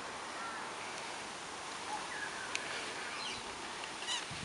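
Faint steady outdoor background hiss with a few short, faint bird chirps scattered through it and a single sharp tick about two and a half seconds in.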